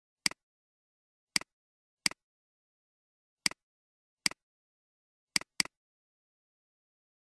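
Computer mouse button clicks, seven in all, spread unevenly, each a sharp press followed at once by a softer release. Two come in quick succession near the end, with dead silence between the clicks.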